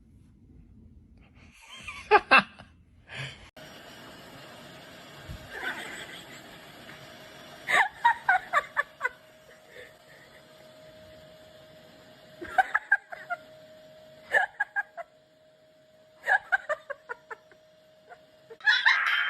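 Several short runs of laughter, each a quick string of 'ha-ha' pulses, over a faint steady hum.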